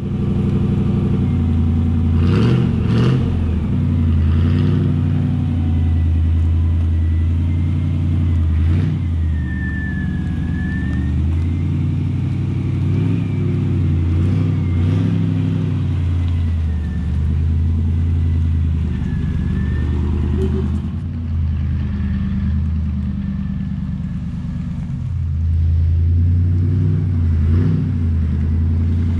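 Engine of a large off-road camper truck running and pulling through mud, its revs rising and falling, with a thin wavering whine above it.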